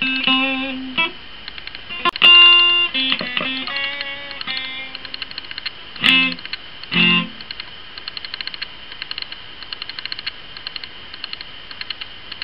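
Fretless electric guitar played in single plucked notes and a few chords, the loudest about two seconds in, the playing stopping about seven seconds in. From then on a rapid, even, repetitive clicking is left, a noise the Fuji FinePix digital camera puts on its own recording even though it has no moving parts.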